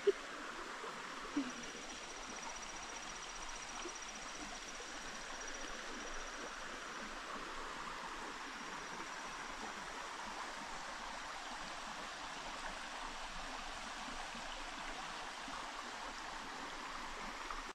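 Steady rush of a flowing stream, even and unbroken throughout.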